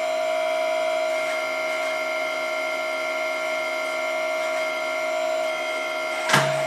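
Hydraulic pump of a THS radio-controlled Volvo EC480D excavator whining steadily at one constant pitch while the grapple works. It is the older pump, not the newer silent type, so it is far from silent. A single sharp click comes near the end.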